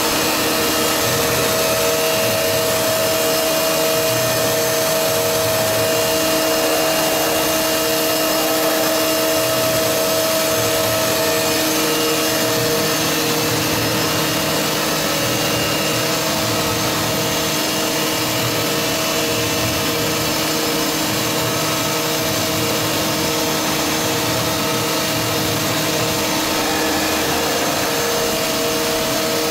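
1989 Fadal VMC 6030 vertical machining center running under power: a steady machine noise of motors, pumps and fans with several held tones. A lower tone sets in about seven seconds in, and a higher one fades out a few seconds later.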